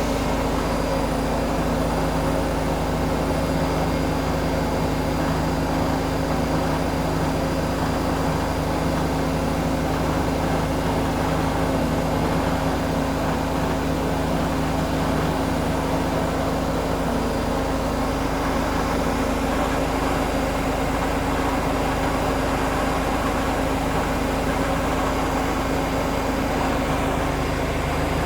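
Zanussi ZE 16 washing machine in its final high-speed spin, the drum and motor running at a steady speed with a constant hum of several tones, on a badly unbalanced load.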